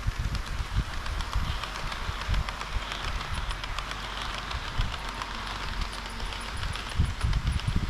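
HO-scale model diesel railcar running along the layout track, with the rapid clicking of wheels over rail joints and a steady running hiss, under frequent low thumps.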